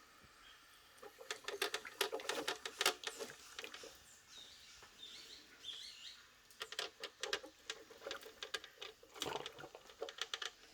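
Moulinex coffee maker sputtering as it brews: faint, irregular crackling pops in clusters, with a few short chirp-like squeaks in between.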